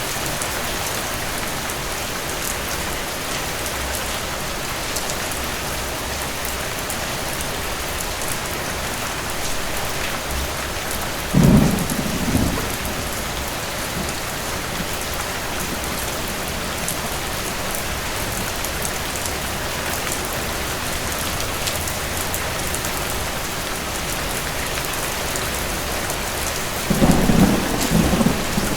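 Steady rain falling, with two short low rolls of thunder: one about eleven seconds in and another starting near the end.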